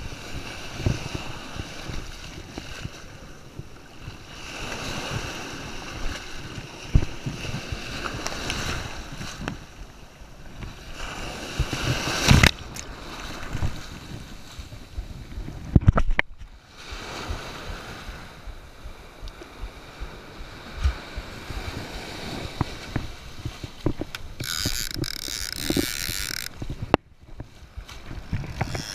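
Wind buffeting the microphone over the wash of surf, with scattered knocks and bumps from the camera being handled, the loudest about halfway through. A hiss lasts about two seconds near the end.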